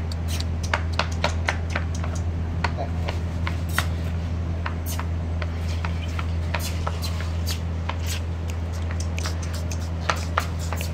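A steady low hum, with sharp, irregularly spaced clicks and ticks scattered through it.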